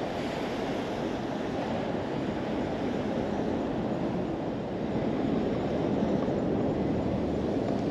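Steady rushing outdoor background noise, growing slightly louder about five seconds in.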